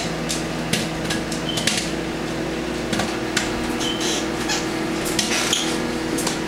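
Footsteps and small knocks on a kitchen floor over a steady electrical hum.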